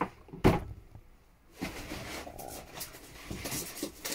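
A sharp knock about half a second in, then rustling and handling noise as a large boxed collectible and its packaging are moved about.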